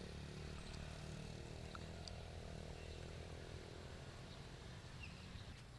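Faint, steady low drone of a running motor, easing off slightly near the end, with a few faint ticks.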